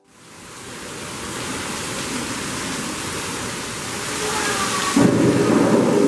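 Simulated rainstorm: artificial rain hisses in, building over the first second, then a loud, low thunder rumble starts suddenly about five seconds in.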